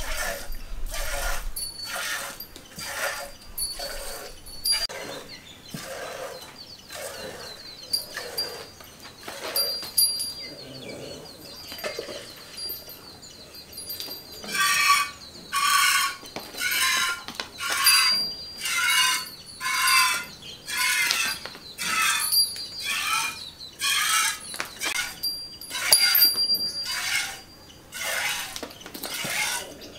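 Hand milking of a cow into a steel pot: spurts of milk hiss into the vessel in a steady rhythm, one squirt for each pull on a teat, with a short break about a third of the way in.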